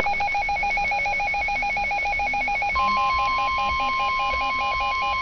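A weather radio's electronic alert beeping in a fast, warbling pulse, joined about three seconds in by the steady, single-pitched NOAA Weather Radio 1050 Hz warning alarm tone that heralds an incoming warning broadcast.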